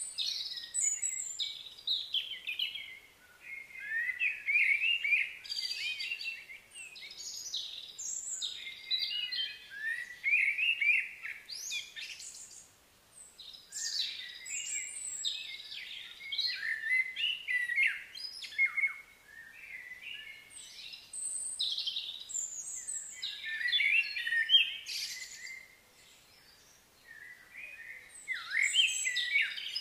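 Small birds chirping in busy runs of short, high calls, with two brief lulls, one about halfway through and one near the end.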